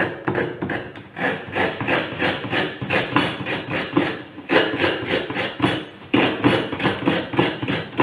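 Fresh coconut half being scraped against a tabletop coconut grater, shredding the white flesh: a fast rhythmic rasping of about four strokes a second, with brief breaks where the coconut is turned.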